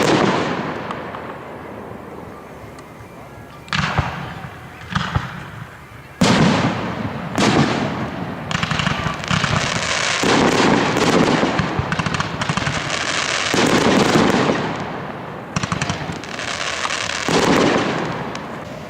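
Aerial fireworks shells bursting with a series of loud bangs. In the middle there is a dense stretch of rapid crackling and popping, and a few more bangs come near the end.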